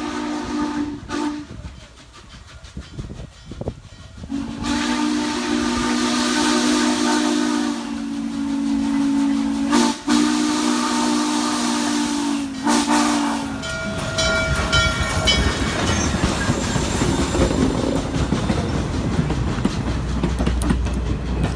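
Steam locomotive whistle sounding a low, several-toned chord: the end of one blast about a second in, then a long blast of about nine seconds. After it cuts off, the train rumbles by with the clickety-clack of its wheels.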